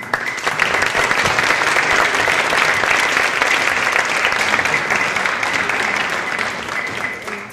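Audience applauding: dense clapping that swells within the first second, holds steady and tapers off near the end.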